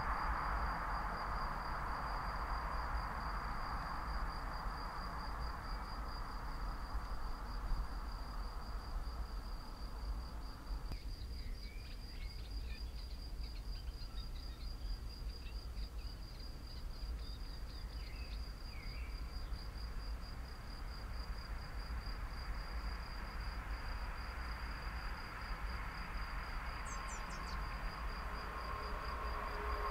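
An insect trilling steadily at a high pitch, in fast even pulses, over a low rumble. A faint rushing noise dies away in the first ten seconds, birds chirp briefly in the middle, and near the end a rushing noise starts to rise as a train approaches.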